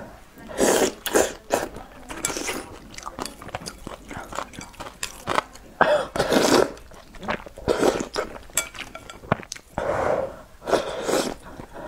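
Noodles slurped from a bowl of soup in several loud sucking bursts, with chewing and small wet mouth clicks between them.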